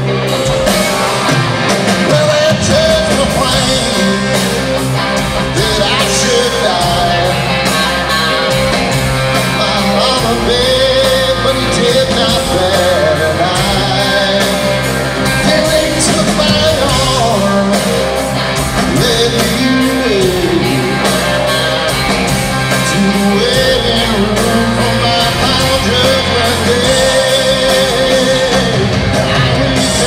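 Live country-rock band playing through a large hall's PA, heard from the audience seats: electric guitar, bass and drums with a steady beat, under a wavering melodic lead line.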